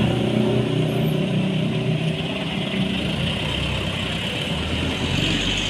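Diesel engine of a Mitsubishi light dump truck pulling away and driving past close by. The low rumble grows from about three seconds in as the truck draws alongside.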